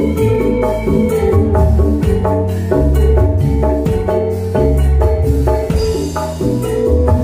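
Live band music led by hand-played kendang drums, with an even beat of sharp drum strokes over a low bass line.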